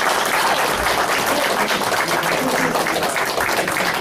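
Audience applauding steadily, with a few voices talking underneath.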